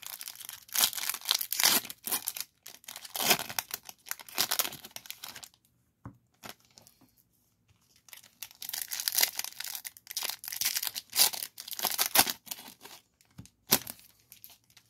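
A baseball card pack's crimped wrapper being torn open and crinkled in the hands, in rapid bursts of tearing and crinkling. It goes quiet for about two seconds midway, then the crinkling and rustling of wrappers and cards starts again.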